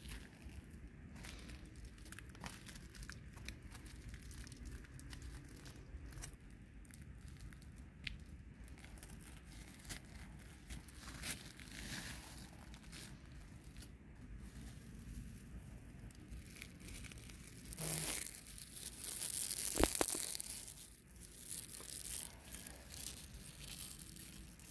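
Dry pine needles and fallen leaves crackling and rustling close to the microphone, in many small irregular crunches, with a louder spell of dense crunching about three-quarters of the way through.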